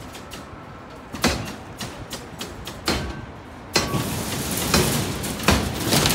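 Irregular sharp knocks and bangs of construction work, coming thicker and louder from about four seconds in.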